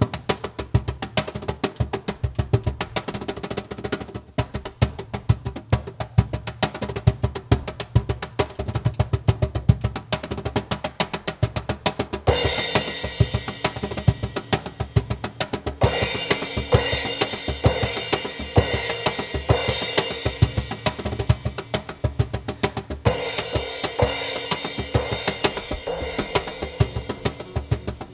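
Hand percussion, cajón and congas, playing a fast, dense rhythm; a cymbal sizzle joins in about twelve seconds in and comes and goes in stretches of a few seconds.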